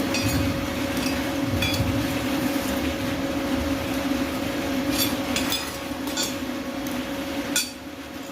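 Arc welding on steel channel: a steady electrical hum under a hissing, crackling arc, with a few light metallic clinks. The arc stops abruptly near the end.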